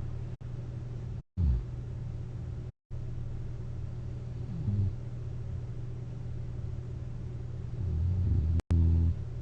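A person snoring on their back with a CPAP fitted: short, low snores about every three to four seconds, the longest and loudest near the end, over a steady low hum.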